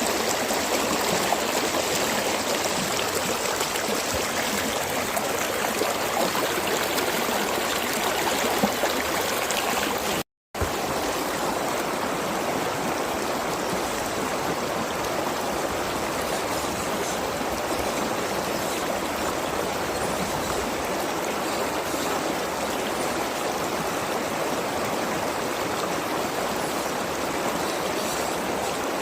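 Mountain stream flowing and gurgling, a steady rush of water. The sound cuts out to silence for a split second about ten seconds in, then carries on.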